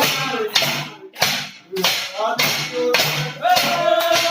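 A song: a voice singing in short syllables over music, holding one long note near the end.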